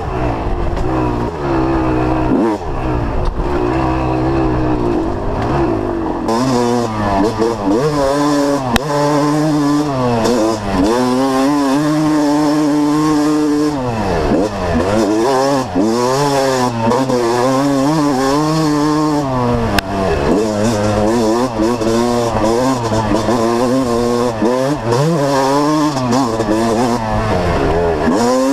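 Dirt bike engine revving under way, its pitch climbing and dropping every second or two as the throttle is opened and closed, with one deep drop and climb back about halfway through.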